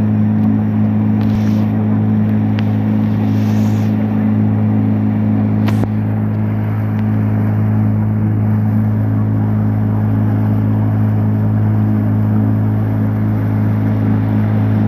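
Motorboat engine running at a steady speed, a constant low drone that does not change in pitch.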